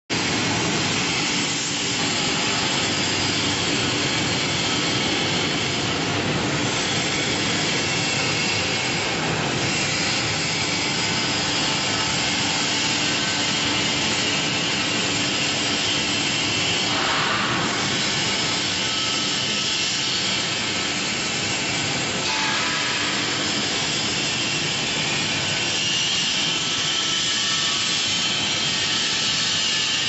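Stainless-steel strawberry bubble washing machine running: its bubble generator churns the water in the tank while the spray-bar nozzles hiss, making a steady rushing noise with a faint low hum beneath.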